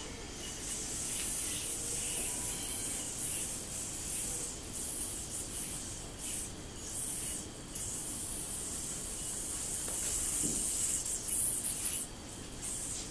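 A spinning yo-yo and its string rubbing during string tricks, heard as irregular bursts of hiss that swell and fade every second or so.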